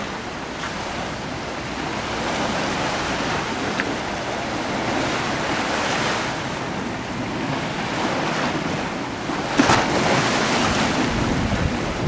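Small ocean waves washing onto a sandy shore and against a stone seawall, a steady surging wash that swells and eases. Wind buffets the microphone, with a sharp loud gust about three-quarters of the way through.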